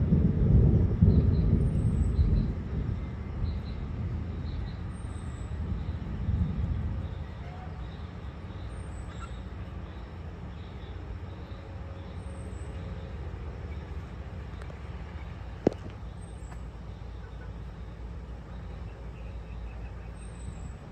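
Thunder rumbling, loudest in the first couple of seconds and rolling away over about seven seconds, then a steady low rumble. A faint high chirp repeats every second or two, and a single sharp click sounds about sixteen seconds in.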